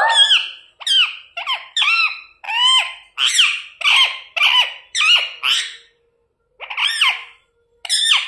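Pet parrot squawking: a string of about a dozen short, harsh calls, each bending in pitch, coming about two a second with a short pause just after the middle.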